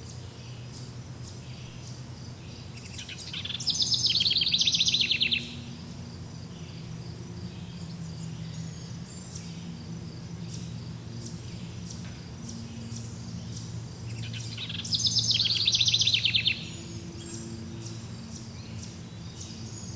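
A songbird sings a loud, rapid trill of many quick notes twice, each lasting about two seconds, the second about eleven seconds after the first. Fainter bird chirps come and go between the songs over a steady low rumble.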